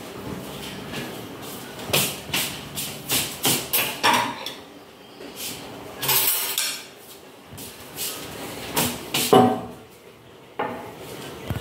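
Glasses, a glass bowl and spoons being set down on a stone tabletop: sharp clinks and knocks, a quick run of them about two to four seconds in and more around nine seconds, with a short scraping noise around six seconds.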